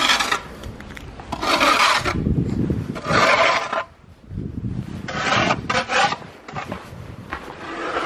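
Snow shovel scraping snow off the pavement in a series of strokes, each under a second long, with a short lull about four seconds in.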